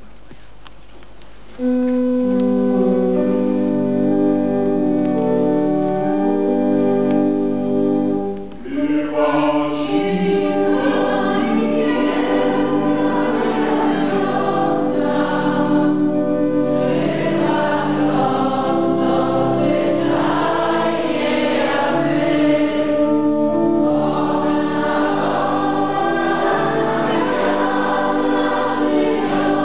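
Church choir singing a slow hymn with organ accompaniment. The organ plays steady held chords alone for the first several seconds, and the voices come in about nine seconds in.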